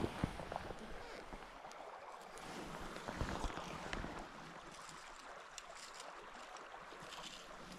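River current flowing steadily: a faint, even rush of water, with a few small ticks.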